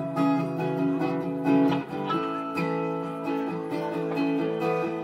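Live band playing an instrumental intro: strummed acoustic guitar with sustained electric guitar notes over it.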